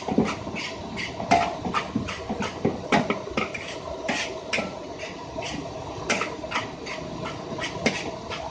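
Metal spatula scraping and clanging against a wok while stir-frying fried rice, in quick, irregular strokes a few times a second.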